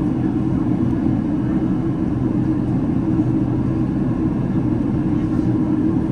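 Steady cabin noise inside a Boeing 767-300ER: an even low rumble of the engines and airflow with no change in level.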